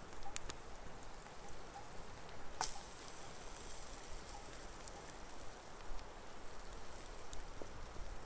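Cooking over a wood campfire: a steady sizzling hiss with scattered crackles, and one sharp pop about two and a half seconds in.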